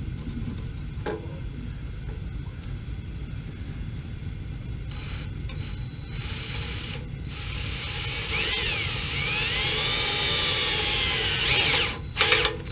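Cordless power driver running a screw into the water heater's ECO high-limit thermal cutoff switch mount: a faint short run about five seconds in, then a longer run whose motor whine rises and falls in pitch, followed by a few sharp clicks near the end as the screw is snugged tight. A low steady rumble lies underneath throughout.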